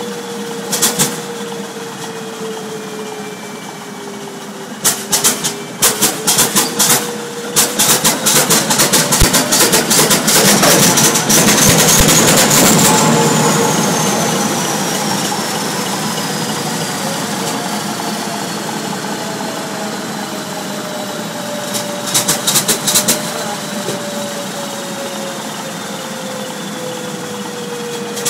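Vintage Duvant diesel engine running just after being started, its pitch rising for about ten seconds and then slowly falling back. Several bursts of loud, rapid sharp cracks break through, the longest lasting from about five to twelve seconds in.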